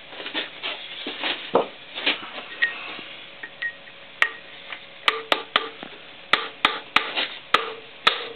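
Hammer tapping on a steel pipe to drive a chilled new valve seat into the warm cylinder head of a YaMZ-236 diesel, a shrink fit. The taps come unevenly, with sharper metallic strikes in quick succession in the second half.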